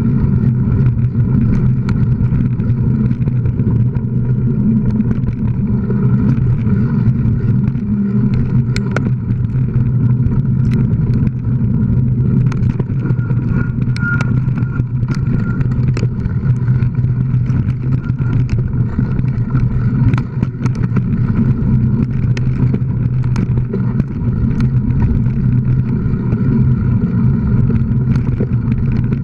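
Steady rumbling wind and ride noise on a camera mounted on a bike speeding along a sandy dirt trail, with many short sharp clicks and knocks as the bike rattles over bumps.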